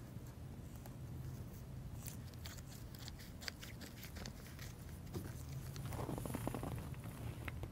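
Scissors snipping through a plastic anti-corrosion bag in a series of short, faint cuts, with the plastic crackling as it is handled about six seconds in.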